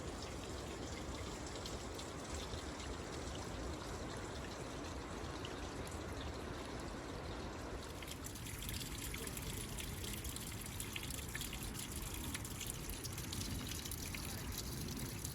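Water trickling and flowing steadily, with a slight shift in the sound about eight seconds in.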